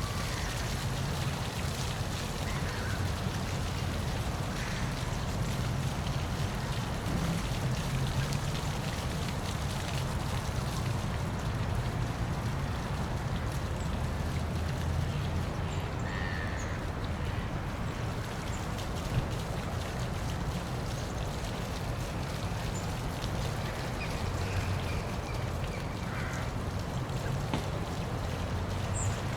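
Steady rush of a waterfall, its falling water giving an even, unbroken noise with a deep low rumble underneath.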